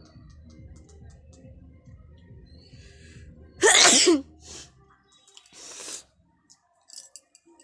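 A woman sneezes once, loud and sudden, with a falling voiced cry in it, about three and a half seconds in. The sneeze is forced by chili held to the nose, and a softer, shorter burst of breath follows.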